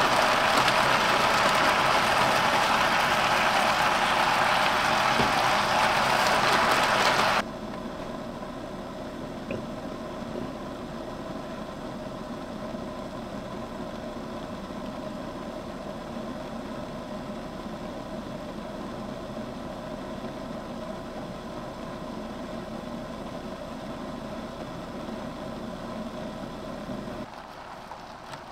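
Food sizzling in a frying pan on a portable butane gas stove, a loud even hiss that cuts off suddenly after about seven seconds. Then a quieter steady hiss and hum of the stove's flame under the lidded pan, which drops lower near the end.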